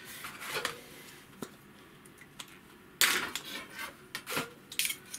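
Hands handling a sheet of thin plastic card on a desk, sliding and rubbing it, with light clattering of hobby tools being picked up and set down; the handling is faint at first and turns louder and busier about three seconds in.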